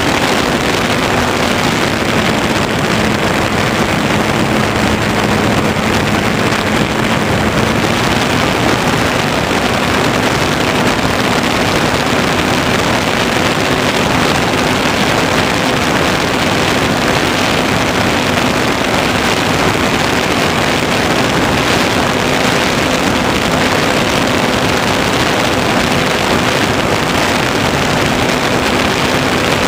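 Electric motor and propeller of an Easy Glider Pro RC plane running steadily in flight, heard through the onboard camera's microphone together with a steady rush of air noise. The motor's hum sits a little lower in pitch for the first several seconds, then comes back up.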